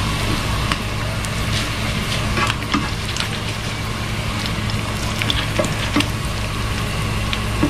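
Hot oil sizzling steadily with scattered crackling pops as egg-battered mackerel patties shallow-fry in a non-stick wok, over a steady low hum.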